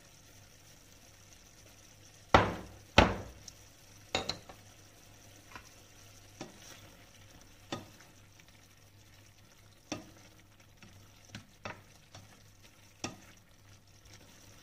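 A spatula stirring diced pork in a frying pan, knocking and scraping against the pan, over a faint simmer of the sauce. Two loud knocks come close together about two and a half seconds in, then lighter taps every second or two.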